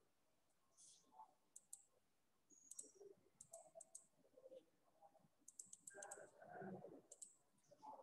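Faint clicking in short, quick clusters of a few clicks each, scattered over near silence, with a faint muffled sound about six to seven seconds in.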